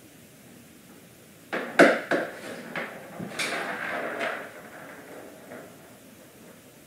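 A bobcat batting a small ball on a hard vinyl floor: a burst of sharp knocks and clatters, the loudest about two seconds in, thinning out over the next few seconds over a faint steady hiss.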